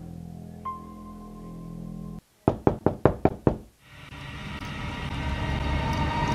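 About six quick, sharp knocks on a door, coming just after the soft background music cuts off. A low, eerie drone then swells and grows steadily louder.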